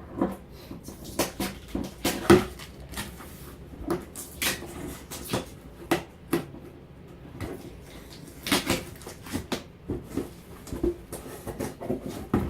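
Cardboard shipping box being opened and handled by hand: irregular knocks, clicks, scrapes and rustles, loudest about two seconds in and again past the eight-second mark.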